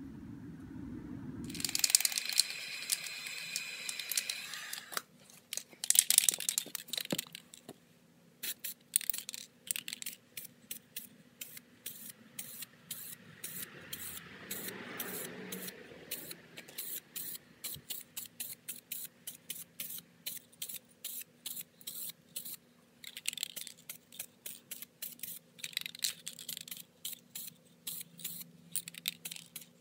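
Aerosol spray-paint can spraying base coat: a long hiss about two seconds in and another shortly after, then a long run of short, quick spray bursts.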